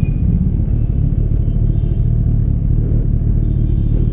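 Motorcycle engine running while riding, under heavy wind rumble on the microphone.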